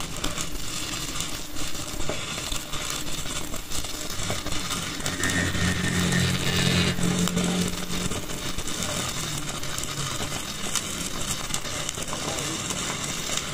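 Stick (arc) welding: the electrode's arc struck at the start and then crackling and spitting steadily as a bead is run joining the hub spindle to a truck's rear axle housing. A low hum joins for a few seconds in the middle.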